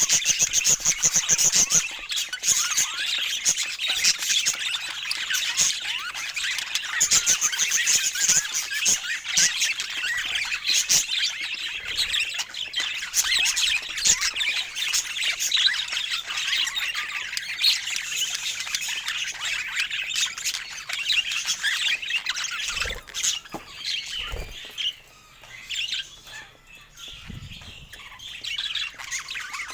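Budgerigars chattering: a dense stream of quick chirps and squawks that thins out and quietens for the last few seconds.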